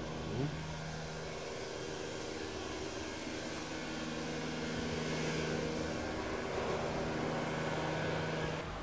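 Steady machinery hum with several held tones over an even rushing noise, growing a little louder toward the middle.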